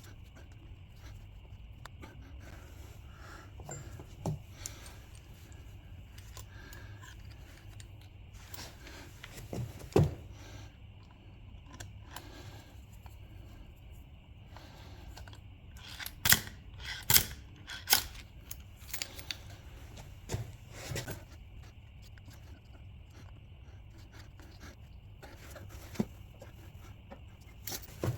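Scattered metallic clicks and knocks of hand tools on engine parts, with a run of sharp knocks a little past the middle, over a faint steady hum.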